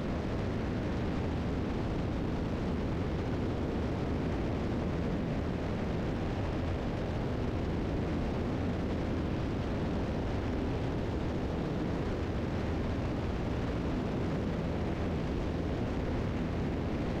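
Steady drone of a Piper Seneca III's two engines and propellers in climb, heard inside the cabin.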